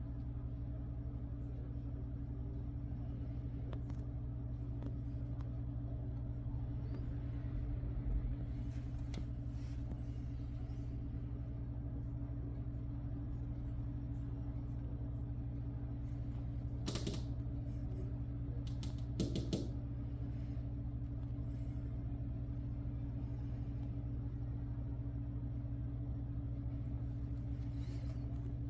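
A steady low mechanical hum, like a motor running, with a few short sharp clicks about two-thirds of the way through.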